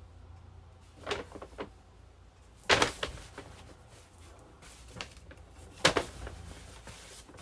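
Cotton hoodie being shaken out and flipped over by hand, giving a few short fabric swishes and flaps, loudest about three seconds in and again near six seconds.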